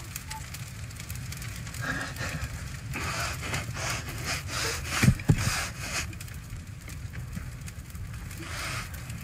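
Bonfire crackling over a low steady rumble, with a man's short strained groans about five seconds in.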